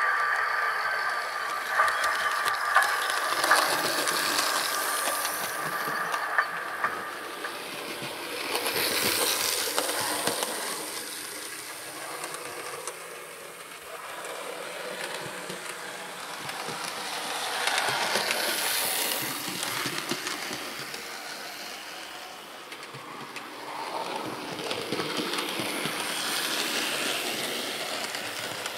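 Hornby OO gauge model LMS Stanier Class 4P locomotive running in around a model railway layout: its electric motor whirring and its wheels clicking over rail joints and points. A whine and a few clicks in the first seconds, then it grows louder and fades three times as it passes by.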